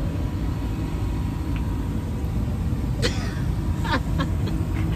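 Steady low rumble of a moving car heard from inside the cabin, with a few faint voices in the background.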